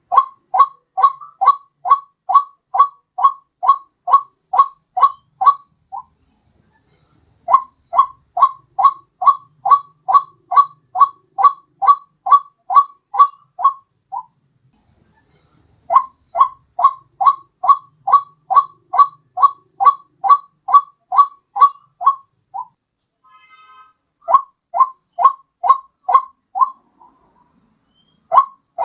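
White-breasted waterhen (ruak-ruak) lure call: fast runs of short, loud rising notes, about three a second. The runs last six to eight seconds each, with brief pauses between them, and repeat as a looped call.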